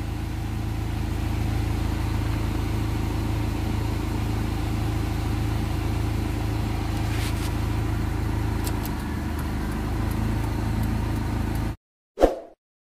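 Honda Civic four-cylinder engine idling steadily, heard from inside the cabin, holding its idle after the idle-drop fault was fixed. The engine sound cuts off abruptly near the end and a short ding follows.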